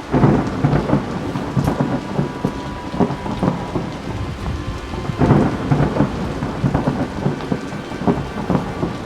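Rain with thunder: a loud crack right at the start and another surge about five seconds in, over dense crackling rain.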